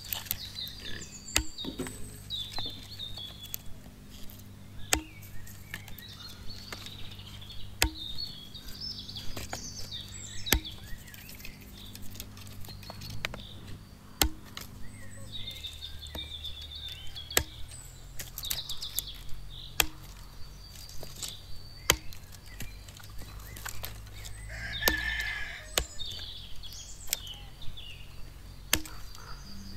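Fiskars X7 XS hatchet chopping thin branches on a wooden stump: a long series of sharp chops, roughly one every one to two seconds.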